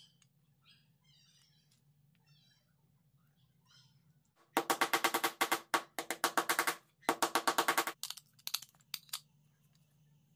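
Claw hammer tapping steel T-nuts into holes in a wooden board: two runs of rapid, ringing taps, several a second, then a few separate taps.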